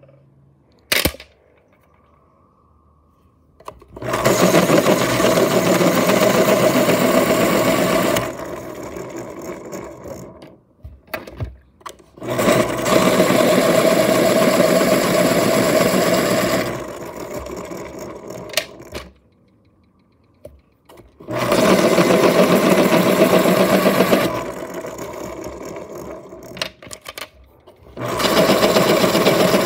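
X-Acto electric pencil sharpener's motor running as pencils are ground in it, in four loud spells of a few seconds each, each easing to a quieter run before stopping. A sharp click about a second in.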